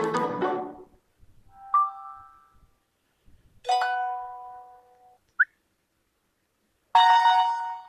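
A run of short electronic notification tones from a UMX phone, played one after another with silent gaps: a quick jingle, a brief chime, a longer held tone, a tiny blip, then another bright chime near the end.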